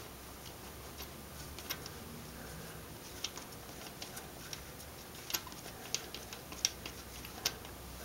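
Spark plug being unscrewed from a quad's engine with a plug socket: faint, sharp, irregular clicks about once a second, a little quicker toward the end, over a low steady hum.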